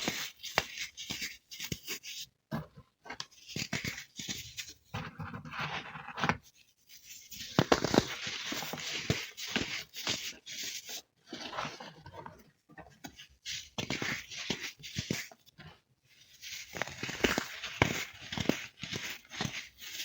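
Crisp chunks of baked baking soda being crushed and crumbled, a dense crunching and crackling that comes in spells with short pauses between them.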